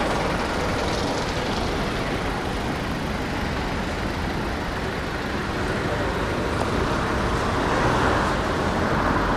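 Steady city street traffic noise, swelling slightly near the end, with faint voices in the background.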